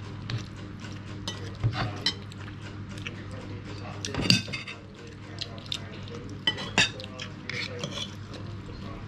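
Metal forks and spoons clinking and scraping against plates during a meal, a scatter of irregular clicks over a low steady hum.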